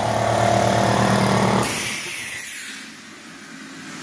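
Electric air compressor running with a steady motor hum, then shutting off about one and a half seconds in with a short burst of air hiss, typical of the unloader valve venting as the compressor reaches cut-out pressure.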